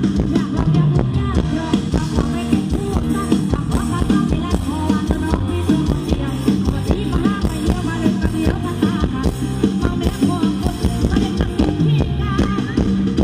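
Loud live band music with a steady drum beat and a wavering melody line.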